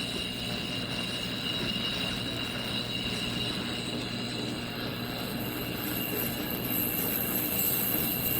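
Steady machine hum with a few steady high whining tones and no distinct events.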